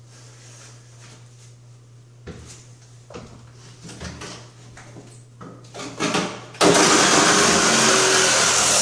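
A reciprocating saw (Sawzall) is set against the fiberglass tub surround with a few knocks, then starts suddenly about two-thirds of the way in and cuts loudly through the surround.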